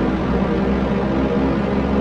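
Steady propeller aircraft noise: an even rushing hiss over a low, droning hum made of several steady tones.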